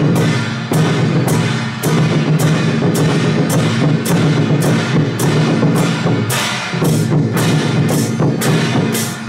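Madou drum troupe playing a marching beat: large barrel drums and hand cymbals struck together about twice a second over a steady low drone.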